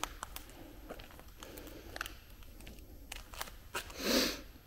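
Scattered small clicks and crunches of footsteps and handling among debris on a littered floor, with a louder rustling crunch about four seconds in.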